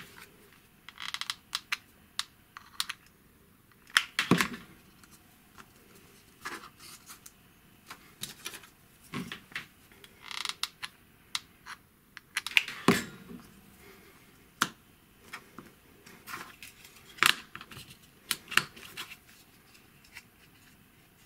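Irregular light clicks, taps and knocks of 3D-printed plastic spacers and wooden rails being handled, glued with a hot glue gun and pressed together on a work mat, with louder knocks about 4, 13 and 17 seconds in.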